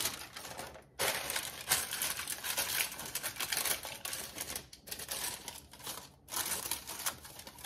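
A sheet of parchment paper crinkling and rustling as it is folded and pressed by hand into a metal loaf pan. The crackling comes in uneven bursts, starting about a second in, with brief pauses twice near the end.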